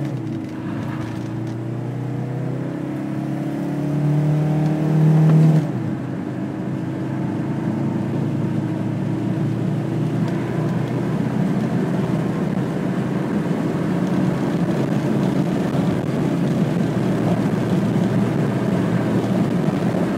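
Mercedes-Benz OM617 five-cylinder turbodiesel, fitted with new Monark injector nozzles, accelerating at full throttle from a standstill. The engine note climbs for about six seconds, drops suddenly at a gear change, then climbs again more slowly under road and wind noise that grows with speed.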